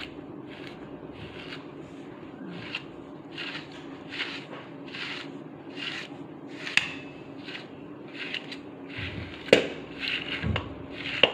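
A grooming brush stroked through a chow chow's thick coat, a short swish about twice a second. Two sharp knocks come near the end, over a steady low hum.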